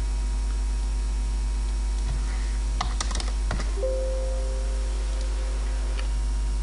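A few quick computer keyboard keystrokes and mouse clicks about three seconds in, with another click near the end, over a steady low electrical hum.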